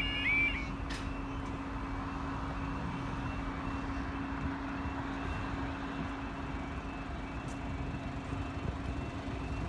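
Steady outdoor traffic noise with a constant low hum. A repeating warbling tone stops about half a second in.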